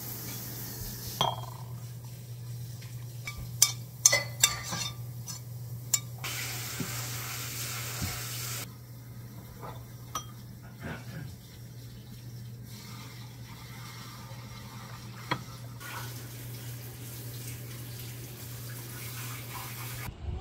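Kitchen cooking sounds: a spoon and utensils clinking and knocking against a stainless saucepan and ceramic bowls, mostly in the first third, over a steady low hum. There are a few seconds of hiss about a third of the way in.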